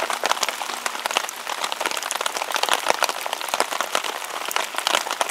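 Rain pattering on a tarp and on an empty MRE pouch hung beneath it to catch the runoff: a dense, irregular patter of drop ticks.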